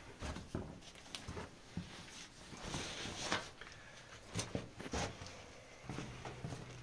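Footsteps in a narrow rock-cut tunnel: irregular soft taps and scuffs of shoes on the stone floor, with a brief rustle about three seconds in.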